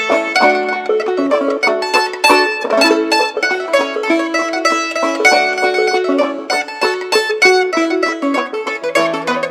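Mandolin and clawhammer banjo, the banjo fitted with a rawhide head, playing an old-time fiddle tune together in a quick run of picked notes.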